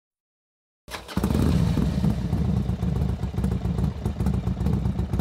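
Motorcycle engine coming in sharply about a second in, then running with an uneven, pulsing beat.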